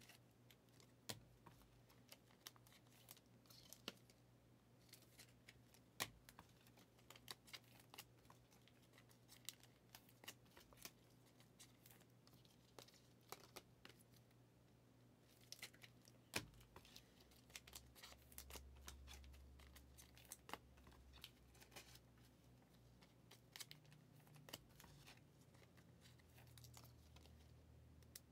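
Faint handling of trading cards and foil pack wrappers: scattered soft clicks, card slides and a few short crinkles and rustles over a low steady hum.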